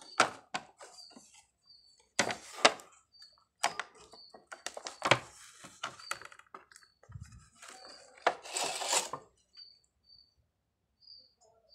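Clear plastic blister packaging of a toy e-rickshaw crackling and rustling in irregular spells as it is pulled apart by hand, with a short low thud about seven seconds in.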